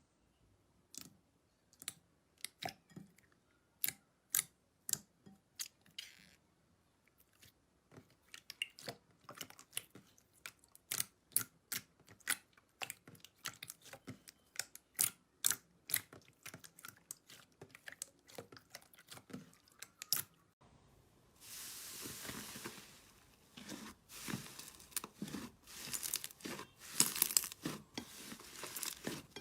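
Slime being squeezed and poked by hand, making a run of sharp little pops and clicks that come thicker and faster. About two-thirds of the way through they give way, with a sudden change, to denser crackling over a steady hiss.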